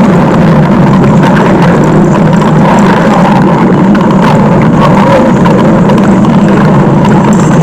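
Stomach-growl sound effect: a loud, dense rumble that runs on steadily without a break.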